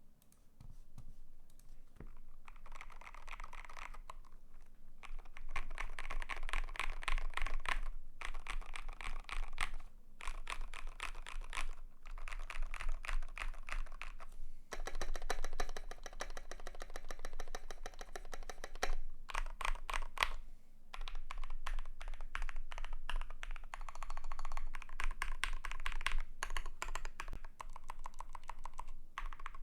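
Typing on a custom KBD75 v3.1 mechanical keyboard with lubed SP-Star Meteor Orange switches, a brass plate, foam and MT3-profile keycaps. Quick runs of keystrokes, broken by short pauses every few seconds.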